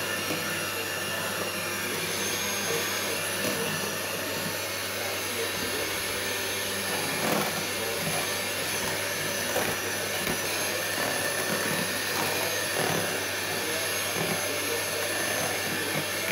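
Hamilton Beach electric hand mixer running steadily, its beaters whirring through pound cake batter as eggs are beaten into creamed butter and sugar. A few brief knocks near the middle.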